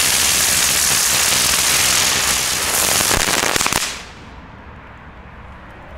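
Xplode Storm crackling ground-spinner firework spinning on the ground with a loud, dense hissing crackle. It ends in a quick run of crackles and stops suddenly about four seconds in.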